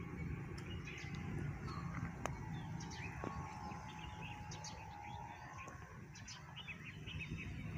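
Small birds chirping and tweeting in short calls scattered through, over a steady low outdoor rumble. A faint steady tone sounds for a few seconds in the middle.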